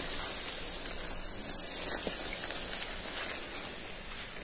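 Chicken shashlik in a wire grill basket sizzling over hot charcoal in a steel mangal: a steady hiss with faint scattered crackles.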